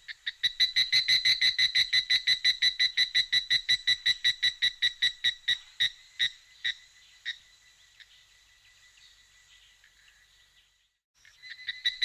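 A rapid, high-pitched pulsing trill, about nine pulses a second, that fades out about seven seconds in and starts again near the end.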